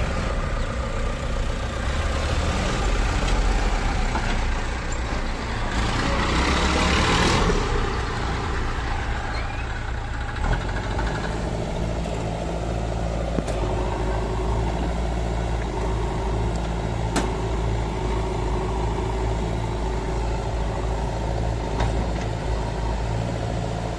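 Diesel engines of a tractor and a backhoe loader running. A rushing noise swells briefly about seven seconds in. From about ten seconds in, the engines settle into a steady low idle, with a few faint clicks.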